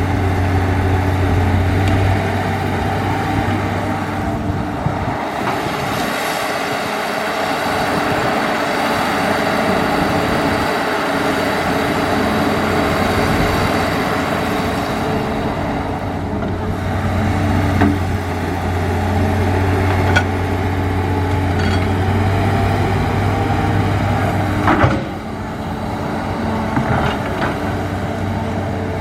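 Hitachi hydraulic excavator's diesel engine running steadily under working load, its low hum dropping away for a few seconds and coming back. A few sharp knocks sound near the end, the loudest about three-quarters of the way in.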